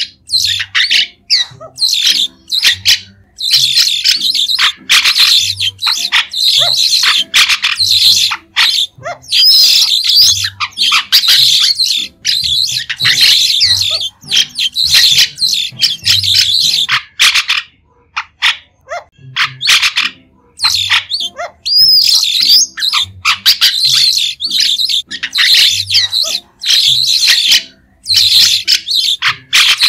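White-shouldered starling calling: fast runs of short, shrill chattering calls in bursts, separated by brief pauses, with a longer break about two-thirds of the way through.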